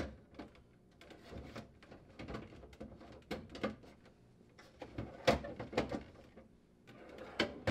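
KitchenAid refrigerator's plastic crisper drawer being pushed in and moved on its metal slide rails, giving a string of light plastic clicks and knocks over a soft sliding rub, the loudest knock a little past halfway.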